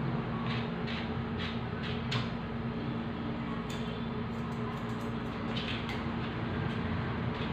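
A pink slicker brush scratching through a dog's ear fur in about five quick strokes, then light clicks of grooming scissors and a comb being handled, over a steady low hum.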